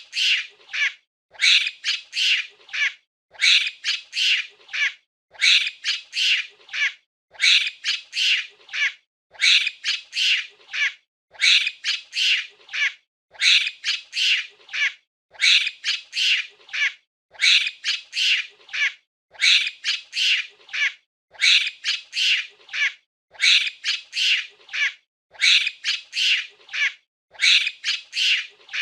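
Monkey giving shrill, high-pitched chattering calls in quick clusters of three or four, each cluster repeating at an even pace about every two seconds.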